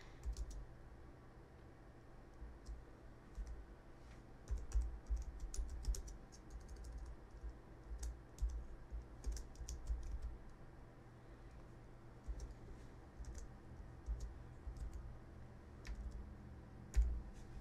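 Typing on a computer keyboard: irregular bursts of keystrokes with short pauses between them.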